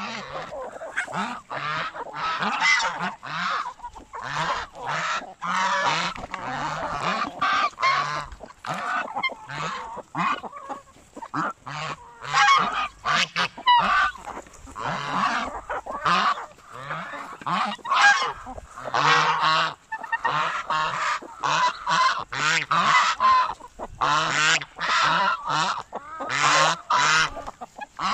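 Domestic geese honking repeatedly, call after call with only short gaps.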